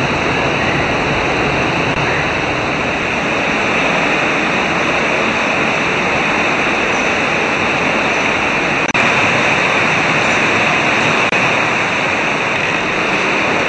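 Steady loud rush of a stream pouring over rocks into a cave swallow hole, with two very short dropouts past the middle.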